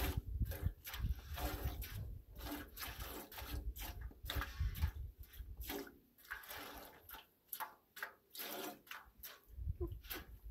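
Cow being hand-milked by two people: streams of milk squirting into a stainless steel pot, a quick run of short squirts, a few each second.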